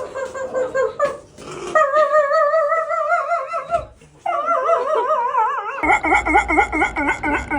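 A dog howling in long, wavering calls, its pitch wobbling rapidly up and down. There is a short break about four seconds in, then a lower call with a faster wobble near the end.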